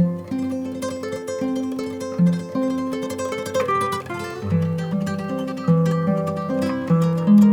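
Background music: gentle plucked-string melody on guitar, one note after another.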